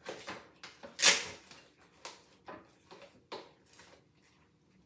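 Plastic meat packaging crinkling and rustling in a series of short, sharp crackles as raw chicken legs are pulled out of it, the loudest about a second in.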